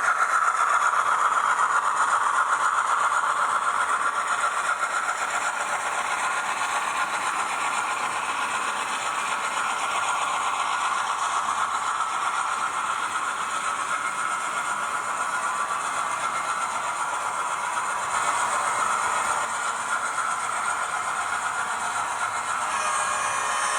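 Sound decoder of an Auscision DCC-sound model 442 class diesel-electric locomotive playing a steady diesel engine sound through its tiny speaker, thin and without bass, with a rattle running through it.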